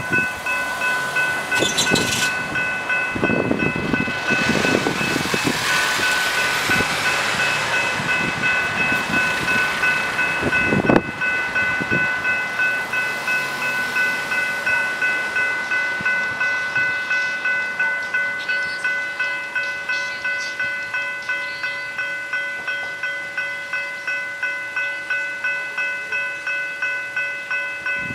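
General Signals Type 3 electronic level-crossing bells ringing in an even, rapid rhythm while the crossing is active, with the booms down. Road noise from passing traffic is heard over the first ten seconds, cutting off sharply about eleven seconds in.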